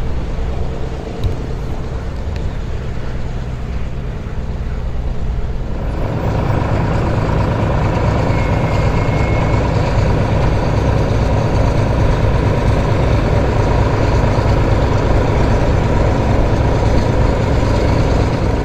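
The de Havilland Canada DHC-4 Caribou's twin Pratt & Whitney R-2000 radial piston engines running as it taxis: a steady, heavy rumble that grows louder and fuller about six seconds in.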